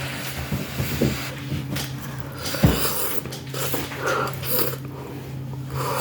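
Close-up eating sounds: noodles being slurped and chewed, irregular and wet, with a couple of soft knocks.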